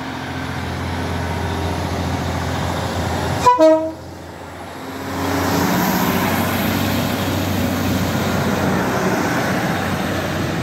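Northern diesel multiple unit running at the platform, giving a short two-note horn toot about three and a half seconds in. About five seconds in its engine noise rises and holds as the train pulls out past the platform.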